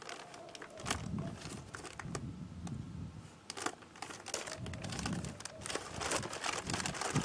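Sheets of newspaper packing rustling and crinkling as they are unfolded and crumpled by hand, in irregular crackles.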